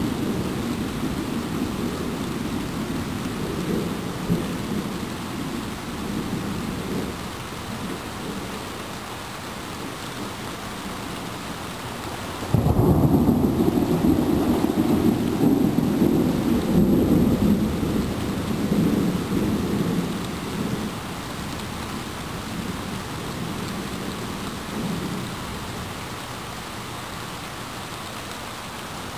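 Thunder rumbling over steady rain. A rolling rumble fades away over the first several seconds, then a much louder peal starts suddenly about halfway through, rolls on for about eight seconds and dies back to the rain.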